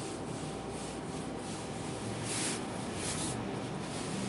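A whiteboard eraser rubbing marker writing off the board, with two louder wiping strokes about two and three seconds in.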